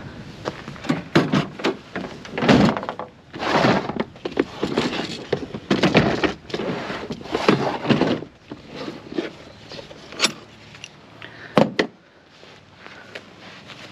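Wrench and steel parts clanking and scraping irregularly while the support bar on a hydraulic cylinder is worked loose, with two sharp metallic clicks near the end.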